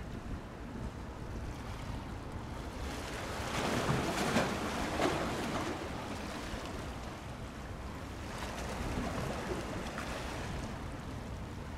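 Sea waves washing and splashing at the water's edge, swelling louder about four seconds in and again, more softly, near nine seconds, over a steady low rumble of wind on the microphone.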